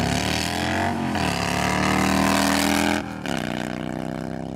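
Cruiser motorcycle engine accelerating hard down a drag strip. The pitch climbs, drops about a second in as it shifts up, climbs again, and drops once more about three seconds in before holding a steadier, slightly quieter note.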